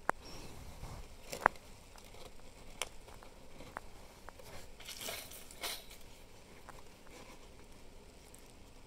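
Handling noise from a brass grommet and stiff canvas tarp fabric worked by hand: a few small sharp clicks, the loudest about a second and a half in, and a short burst of fabric rustling around the middle.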